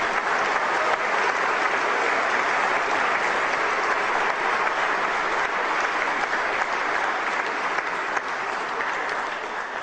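Sustained applause from a seated audience, a dense even clapping that tapers off slightly near the end.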